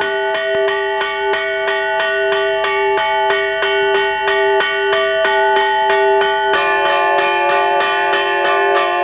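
Orthodox church bells rung by hand in a bell tower: quick, even strikes, about four a second, each ringing on. About six and a half seconds in, the pitches change as a different set of bells sounds.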